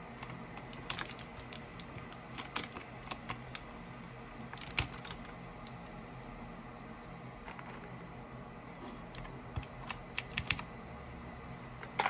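Keys of a Keychron K8 Pro mechanical keyboard clacking in irregular bursts of a few strokes each, with pauses between. The loudest burst comes about five seconds in, and a quicker run near the end.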